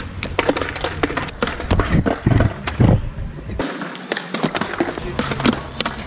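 Skateboard clacking on concrete: the tail popping, wheels and deck knocking and scraping on a ledge, with several hard landings about two to three seconds in. Music plays underneath.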